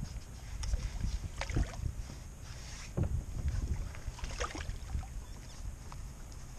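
A hooked bass splashing at the surface beside a small boat as it is played in and landed by hand, with several sharp splashes about a second and a half apart. A steady low wind rumble on the microphone runs underneath.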